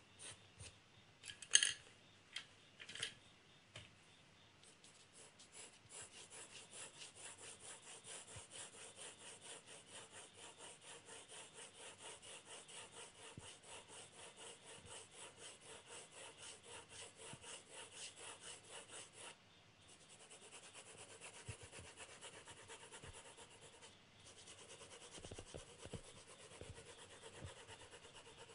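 Graphite pencil hatching on drawing paper: a few separate scratches at first, then a long, even run of back-and-forth strokes at about three a second. The run breaks off briefly twice, and the later strokes are quicker and lighter.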